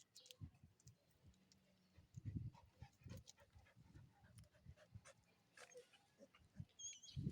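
Aspin dog panting faintly in short runs of soft breaths during a mating tie. A brief, high, wavering chirp comes near the end.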